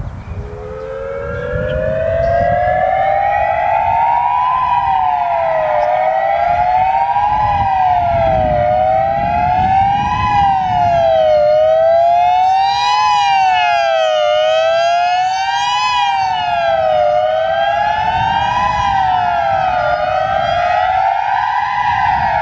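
Federal Signal EOWS-612 outdoor warning siren winding up slowly from a low pitch to its peak over about four seconds. It then sounds a fast wail, its pitch swinging down and back up about every three seconds. A fainter, more distant siren can be heard under it.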